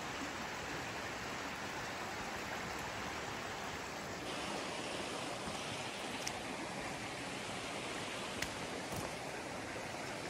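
Steady rush of running floodwater, with a couple of faint ticks about two-thirds of the way through.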